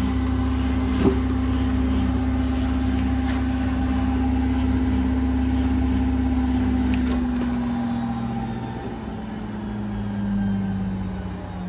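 Washing machine drum spinning empty with a steady motor hum and low rumble. About seven seconds in the rumble drops away and the hum falls slowly in pitch as the drum winds down, with the odd noise the owner hears during the slowdown. A single sharp click about a second in.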